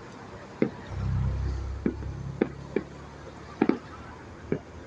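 Distant fireworks going off: about seven sharp bangs at uneven intervals, two of them close together past the middle, with a low rumble about a second in.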